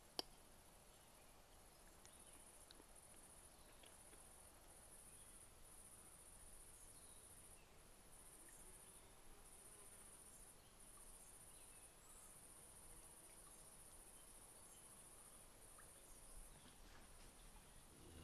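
Faint, high-pitched chirring of crickets in long trains broken by short gaps, over quiet rural background. A single sharp click sounds just after the start.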